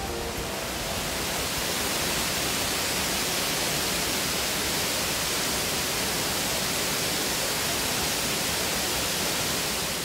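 Nabegataki curtain waterfall pouring over a rock ledge into its plunge pool: a steady, even rush of falling water.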